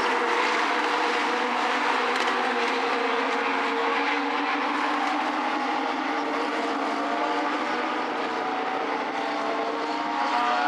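Several Legends cars' motorcycle engines running together at steady revs while the field circles under caution. Their pitches drift slowly and climb near the end.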